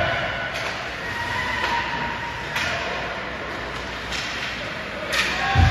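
Ice hockey game sounds: about five sharp clacks of sticks and puck spread through, over a steady background hubbub, then a heavy thud near the end.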